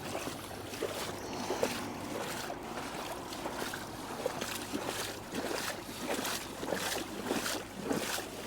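Footsteps walking over icy, waterlogged ground, a steady tread of about two steps a second.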